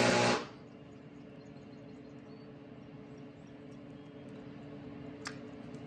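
Stick-welding arc crackling on the steel blade, cutting off abruptly about half a second in as the weld is stopped. After that only a faint, low steady hum, with one sharp click near the end.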